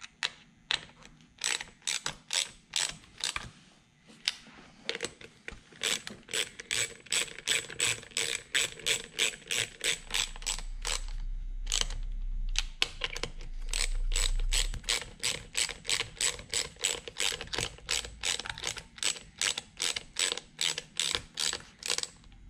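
Hand socket ratchet clicking in long quick runs of about four clicks a second as it turns screws on a steering-wheel airbag module, with two short pauses.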